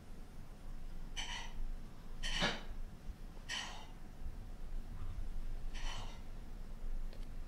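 British shorthair kitten making hunting sounds: four short, high calls, the second one the loudest.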